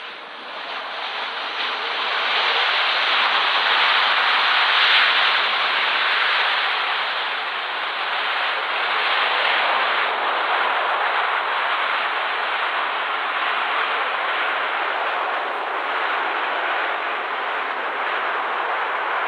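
Jet airliner landing: a steady jet-engine roar that swells over the first few seconds, then holds.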